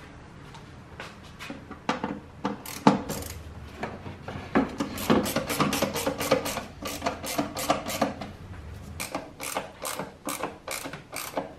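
Ratcheting screwdriver turning a screw into the plastic air filter housing of a Mercedes E350 (W212), a quick run of clicks that is thin at first, fast in the middle and slows near the end.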